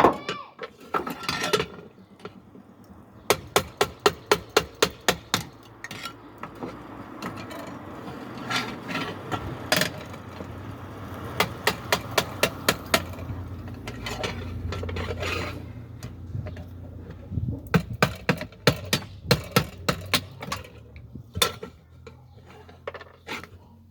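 Metal pressure-cooker parts being knocked, tapped and clinked by hand during a repair: runs of sharp taps several a second, with a low hum rising in the middle.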